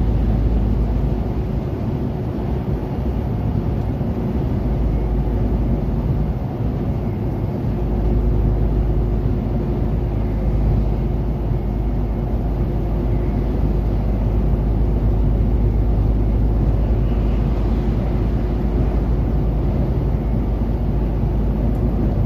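Heavy truck cruising on a wet motorway, heard from inside the cab: a steady low drone from the diesel engine mixed with tyre and road noise.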